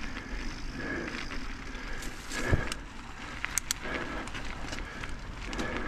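Mountain bike riding up a dirt forest trail: steady tyre and drivetrain noise with scattered clicks and knocks, the loudest about two and a half seconds in.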